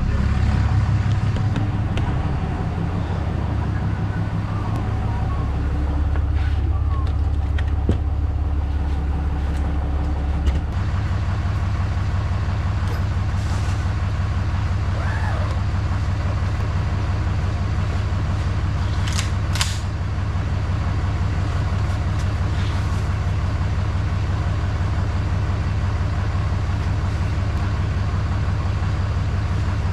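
Motor vehicle engine running steadily, a low hum that shifts down and eases slightly about ten seconds in, with a few faint high chirps over it.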